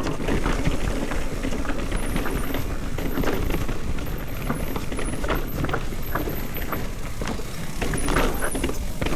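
Mountain bike running fast down a dirt trail: a steady rush of wind over the microphone with tyres on dirt and rocks and the bike rattling over bumps, and a few brief high-pitched squeals.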